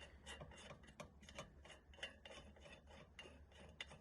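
Faint scraping and clicking of metal on metal as a rusted, slotted freewheel is unscrewed from the hub's threads, with several irregular ticks a second.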